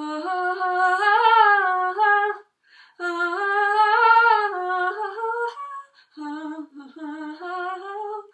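A woman humming a slow song melody without words, a cappella, in three long phrases with short pauses between them.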